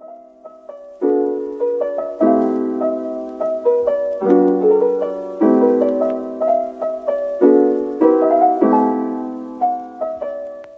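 Background piano music: a slow run of chords, each struck and left to ring, changing every second or two and fading out near the end.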